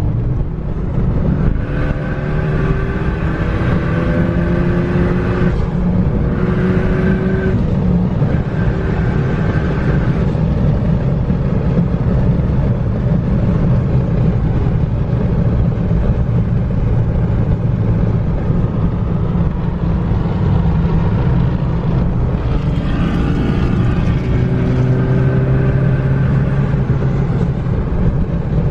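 Car engine running under way with a steady low rumble and road noise. Its pitch rises in steps twice as it accelerates, once in the first several seconds and again near the end.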